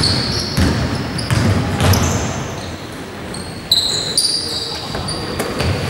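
A basketball bouncing on an indoor court, several sharp bounces, with sneakers squeaking in short high squeals as players move.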